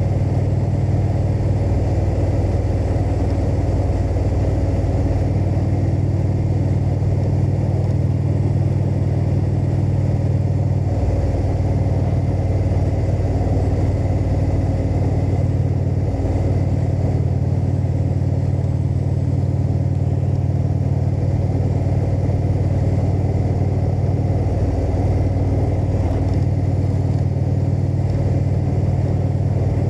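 Indian motorcycle's V-twin engine running steadily at cruising speed on the road, with brief easings of the throttle about eleven and sixteen seconds in.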